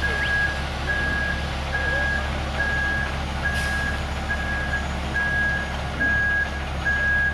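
Truck backup alarm beeping steadily at about one beep a second, over the constant low hum of a concrete mixer truck's engine running while it discharges down the chute. A brief hiss comes about three and a half seconds in.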